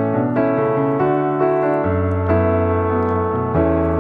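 Background piano music: a melody moving note by note over held low notes.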